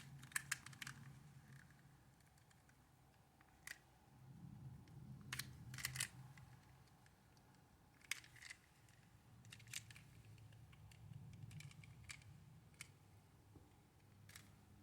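Faint, scattered clicks and taps of a small plastic toy's shell halves being worked apart by hand, in small clusters with quiet gaps between.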